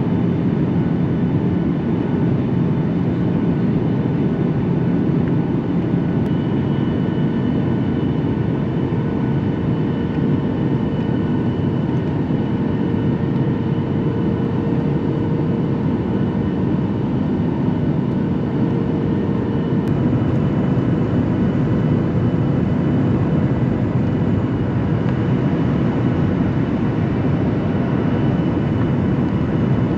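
Jet airliner cabin noise on final approach: a steady rush of engine and airflow heard from inside the passenger cabin, with a few faint steady engine tones; one of them shifts slightly about two-thirds of the way through.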